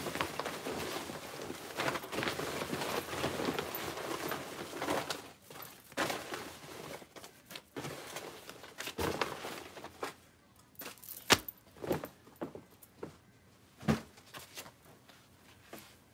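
Hands rummaging through a fabric storage basket of loose items: continuous rustling for about five seconds, then scattered knocks and clicks, the loudest about eleven seconds in.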